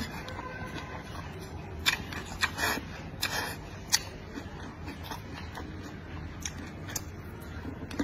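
Close-up mouth sounds of a person eating: chewing with a series of sharp wet smacks and clicks, busiest a couple of seconds in and fainter towards the end.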